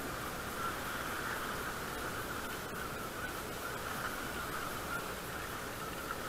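Baitcasting reel being cranked steadily, its gears giving a continuous even whir as line is wound in.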